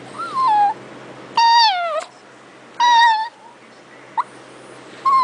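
Chihuahua whining three times, each a high cry of about half a second that mostly falls in pitch.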